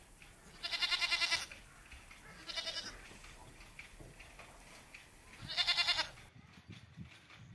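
A goat bleating three times: a long wavering bleat about a second in, a shorter, fainter one around three seconds, and another long wavering bleat near six seconds.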